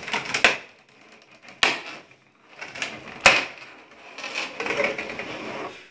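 Clear plastic blister tray crackling as hands pull it apart and lift its cover, with three sharp plastic clicks about half a second, a second and a half, and three seconds in, the last the loudest.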